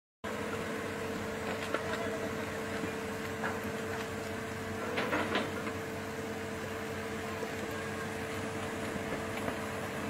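Bulldozer engine running steadily: a constant hum with a steady tone, and a few faint knocks.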